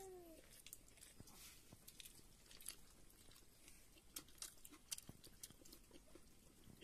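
Faint chewing of a person eating rice by hand, heard as many small scattered mouth clicks. A brief falling tone sounds right at the start.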